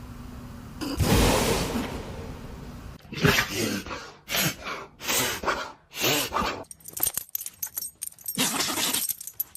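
Dogs sneezing: a string of short, sharp sneezes one after another, the longest about a second in.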